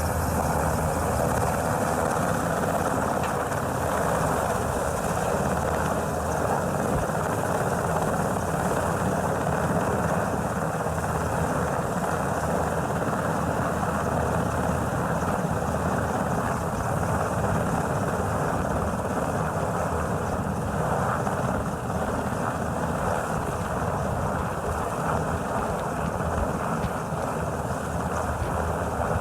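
Helicopter rotor and engine noise, a loud, steady drone that holds level throughout without any marked change.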